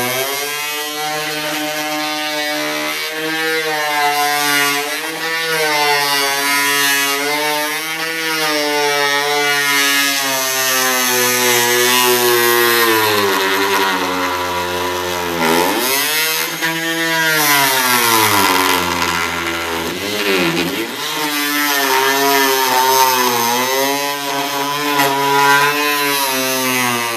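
Fein Multimaster oscillating multi-tool running continuously as it cuts across a mahogany hull plank. Its buzzing pitch wavers as the blade is worked through the wood and sags twice near the middle as the cut loads it.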